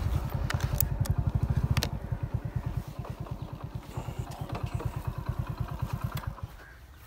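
Small engine running with a fast, even chugging beat, loudest near the start and fading until it stops about six and a half seconds in. A few sharp clicks sound over it in the first two seconds.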